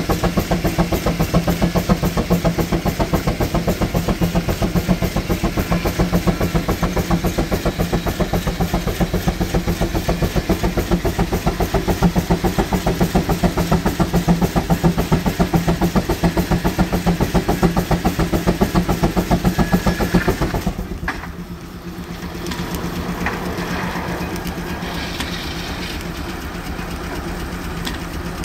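Steam traction engine running with a fast, even exhaust beat over a steady low hum. About two-thirds of the way through, the beat stops and a quieter, steadier machine sound takes over.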